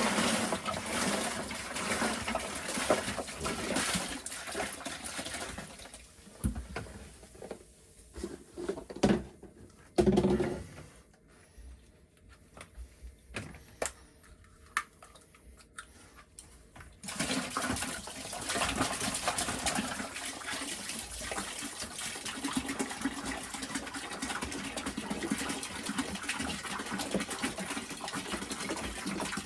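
White vinegar poured from gallon jugs into a bucket, a steady splashing pour. It stops for several seconds in the middle, with a few knocks, then starts again and keeps running.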